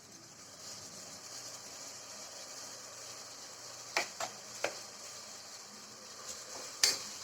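Ginger-garlic paste and onions sizzling steadily in hot oil and ghee in a pressure cooker, as the paste is fried. A few sharp taps, three about four seconds in and another near the end, stand out above the sizzle.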